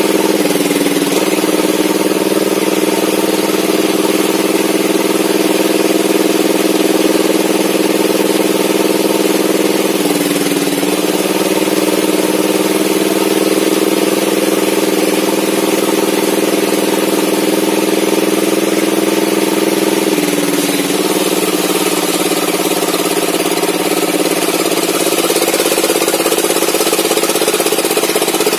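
Engine-driven homemade log table saw running steadily while a mahogany slab is fed through the blade. The engine's pitch dips briefly three times, about 1, 10 and 20 seconds in, as the cut loads it, then picks back up.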